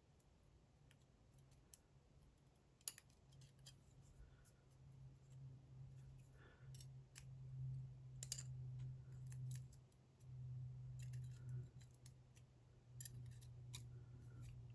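Faint, scattered small clicks and ticks of a DOM IX Saturn dimple lock's pins, springs and drivers being handled with tweezers or tools as the lock is taken apart. A faint low hum comes and goes underneath.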